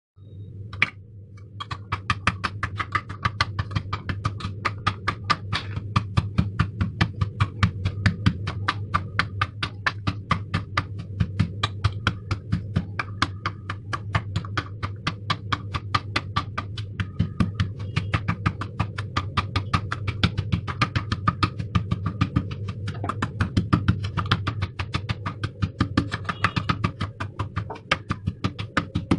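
Metal pestle pounding peeled garlic cloves in a small stainless-steel bowl: quick, even metallic knocks, several a second, as the cloves are crushed to a paste.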